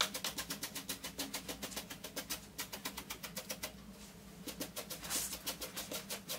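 Slicker brush raked quickly through the long synthetic wig hair of a dog grooming model, short scratchy strokes at about six a second, with a brief pause a little past halfway before the strokes resume.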